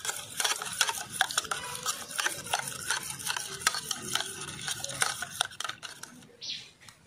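Metal spoon beating raw egg with chopped onion and green chili in a small steel bowl: a fast run of clinks and scrapes against the bowl's sides that stops about five and a half seconds in.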